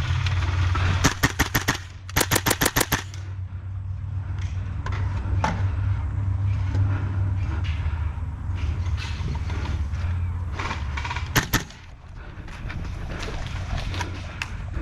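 Airsoft rifle firing two quick bursts of about seven shots each, starting about a second in, then a few single shots later, over a steady low rumble.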